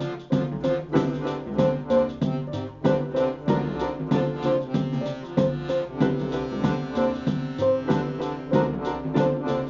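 Instrumental music with a steady beat: accordion and keyboard playing sustained, reedy chords and notes over a programmed beat from a sequencer.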